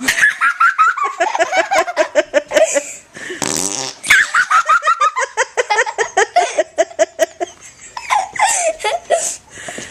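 Loud, high-pitched laughter in long runs of quick giggles that slide down in pitch, with a short squelching fart noise from Flarp noise putty about three and a half seconds in.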